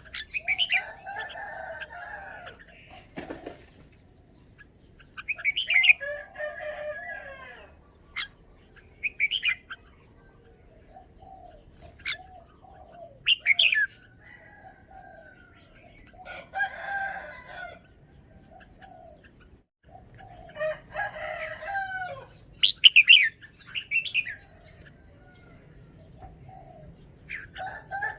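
Red-whiskered bulbul singing: short, bright warbled phrases with sharp whistled notes, repeated every few seconds with pauses between them.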